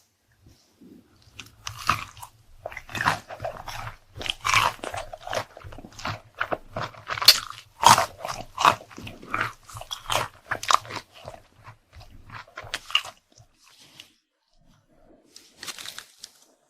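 A person biting and chewing crunchy food close to the microphone: a dense run of crisp crunches that thins out about three-quarters of the way through into a few softer chews.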